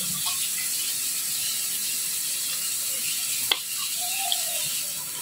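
Quiet eating noises from someone picking apart cooked food with their fingers and eating it, with one sharp click about three and a half seconds in, over a steady hiss.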